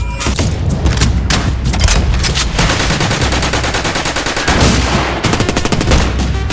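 Gunfire sound effects in a film shootout: rapid automatic fire in bursts with single shots between them. The fire becomes a dense, continuous volley in the middle and ends in a fast run of shots.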